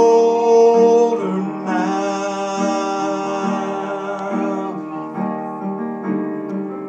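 A man singing a slow hymn to his own digital piano accompaniment: he holds his last sung note for about a second. The piano then plays on alone with slow, sustained chords that change about once a second.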